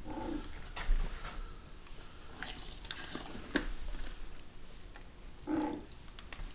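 Dead channel catfish being handled and shifted in a plastic cooler: wet slaps and scattered knocks of fish and hands against the cooler walls, busiest around the middle. Two brief low droning sounds come at the start and about a second before the end.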